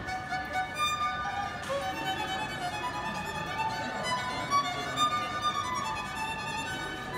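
Solo violin, bowed, playing a melody of changing notes.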